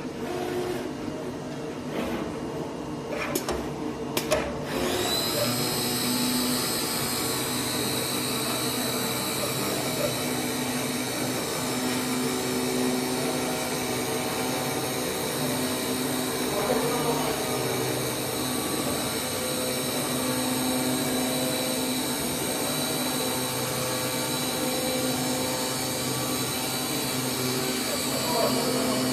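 CNC flatbed digital cutter working on E-flute corrugated cardboard. A few clicks come first. About four and a half seconds in, a steady high whine starts and runs on, over a lower motor hum that comes and goes as the cutting head travels.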